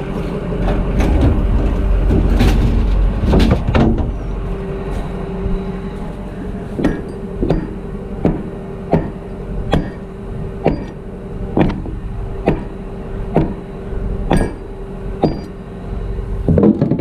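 Engine idling steadily under a service-truck compartment door being opened and tools clattering. From about seven seconds in there are about ten sharp, even hammer blows on metal, roughly one a second.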